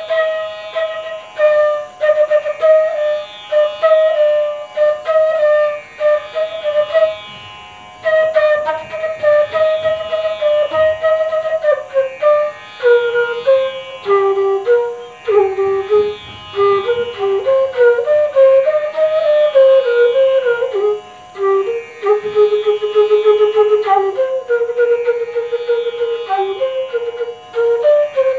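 Bansuri, a bamboo transverse flute, playing quick runs of notes in Raag Yaman, the phrases moving lower in the second half, with a short break about seven seconds in. A steady drone holds underneath.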